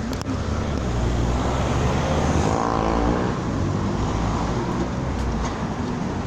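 Street traffic noise: a steady low engine drone, swelling briefly about halfway through.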